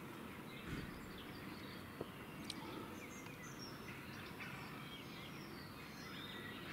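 Faint outdoor background noise with scattered distant bird chirps.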